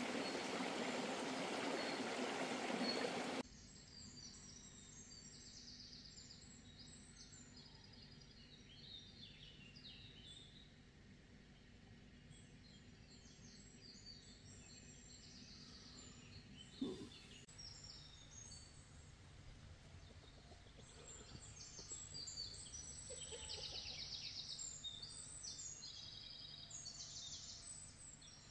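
Small birds chirping and singing in short high calls, busiest in the last third. At the start, a louder steady rushing noise runs for about three seconds and cuts off sharply, and a single knock sounds about halfway through.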